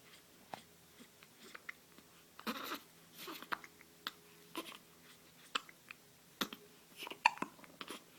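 Irregular mouth noises: sharp wet clicks and smacks with a few short breathy huffs, several a second at times.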